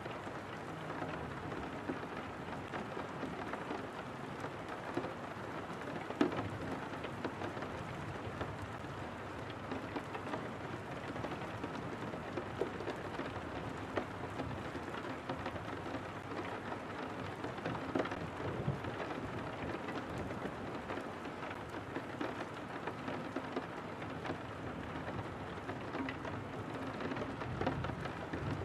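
Steady rain falling on a window pane, a constant hiss with scattered single drops ticking through it.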